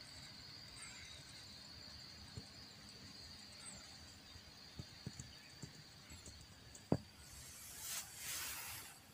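Quiet countryside ambience with a steady, high-pitched insect drone. A few faint knocks fall in the middle, a sharper one comes about seven seconds in, and a short rush of hiss swells and fades near the end.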